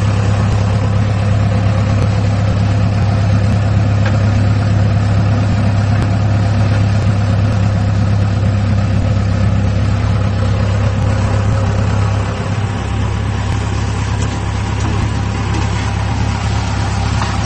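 Ford tractor's engine running steadily with a deep hum, easing down somewhat in level about twelve seconds in.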